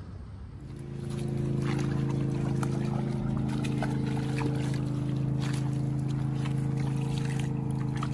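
A steady engine hum at a constant low pitch starts about half a second in and holds throughout. Over it come irregular splashes of a trout thrashing in shallow water as it is grabbed by hand.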